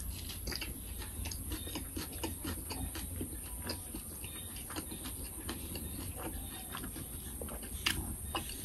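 Close-miked chewing of a mouthful of sticky rice with mackerel chili dip: soft, wet mouth clicks and smacks at an irregular pace, with a slightly louder click near the end.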